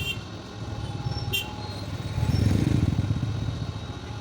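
A motor vehicle's engine running with a low, finely pulsing rumble that swells louder about two seconds in, then eases off.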